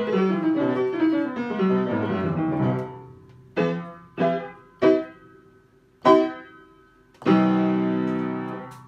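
Upright piano played with both hands: quick descending runs of notes for about three seconds, then four separate short chords, and a final chord held and dying away near the end, closing the piece.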